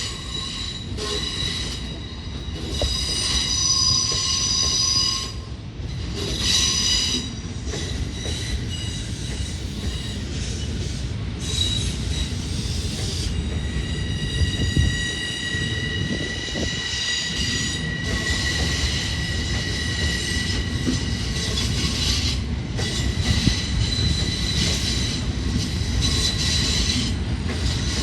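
Long Island Rail Road electric train rolling out of the yard, its steel wheels squealing in high steady tones that come and go over a continuous rumble.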